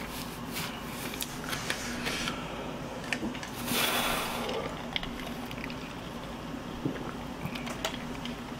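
Quiet chewing of fried chicken with small mouth and tabletop clicks, and a short rustling hiss about four seconds in.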